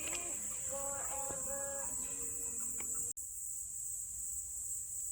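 Crickets chirring in a steady high-pitched chorus. For about the first three seconds a pitched, voice-like sound lies over it, then it stops abruptly, leaving only the insects.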